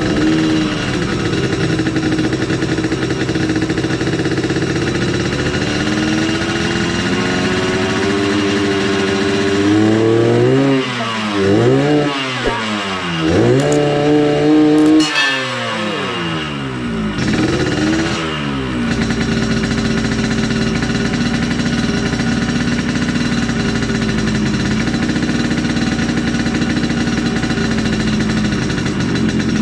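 2003 Yamaha RX-King's single-cylinder two-stroke engine running at idle while its carburettor is set for a 'ngorok' (snoring) idle note. Between about eight and eighteen seconds in it is revved several times, pitch rising and falling, then it settles back to a steady idle.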